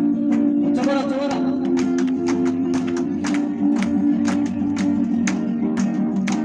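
Acoustic guitar strummed live in a steady rhythm, about three strums a second, with a man singing over it.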